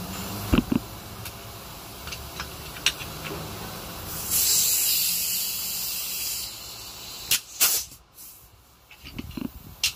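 Brake work in a workshop: scattered light metal clicks and knocks, and about four seconds in a loud spraying hiss lasting about two seconds.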